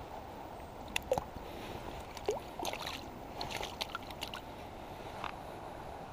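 Shallow stream water running steadily, with a scatter of small splashes and sloshes as hands handle a small steelhead in the water.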